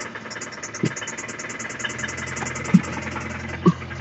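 2012 Hyundai Sonata Hybrid's four-cylinder engine idling with a fast, even ticking and three sharp knocks a second or so apart. This is the unexplained noise from the engine that the owner is trying to trace, either inside the engine or in the belt drive.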